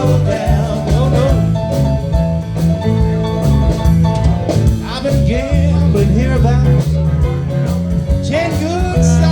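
Live blues band playing: a steady bass line and drums, with lead notes that bend in pitch over the top.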